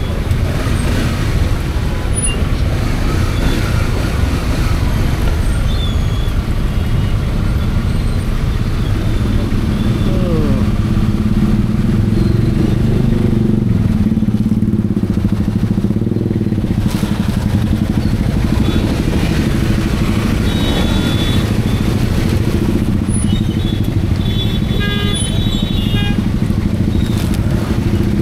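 Motorcycle engine running in jammed traffic, with the rumble of other vehicles around it. A steadier, stronger engine note sets in about nine seconds in, and brief high squeaks come near the end.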